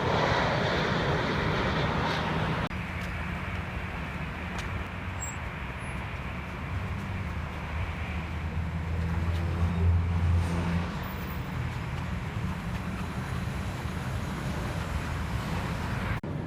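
Airliner engine noise, loud for the first few seconds and then cut off abruptly. A steadier, lower rumble follows that swells near the middle.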